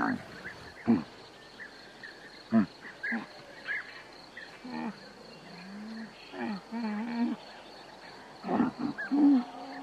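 Dromedary camel making a string of short, low grunting calls, with a longer wavering groan in the middle and a quick cluster of grunts near the end.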